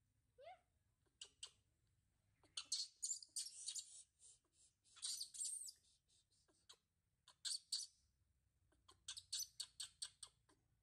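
Baby macaque squeaking in quick high-pitched series, in several bouts, with a short rising call about half a second in.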